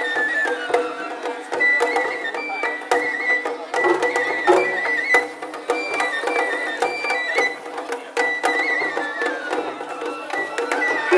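Japanese festival music (matsuri-bayashi): a high flute playing a stepping melody over repeated sharp percussion strikes.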